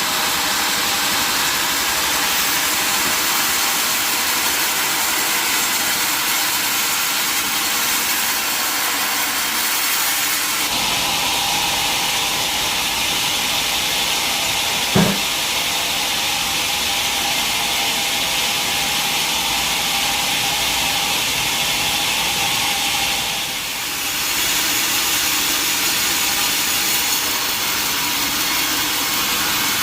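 Sawmill saw cutting through a large mahogany log, running steadily. The sound of the cut changes about a third of the way in, and a single sharp knock comes about halfway through.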